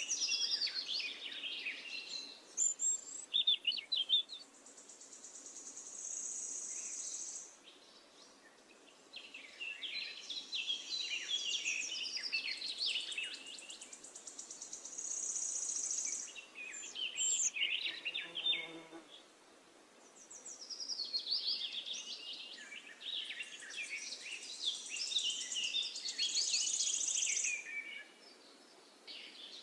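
Birds singing: rapid chirps and trills in bursts of a few seconds, with short pauses between.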